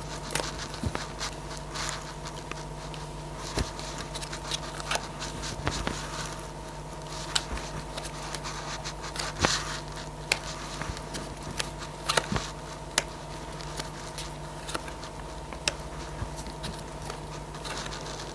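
Oracle cards being dealt one at a time from the deck and laid down on a cloth, short taps and scrapes of card on card scattered irregularly throughout, over a steady low hum.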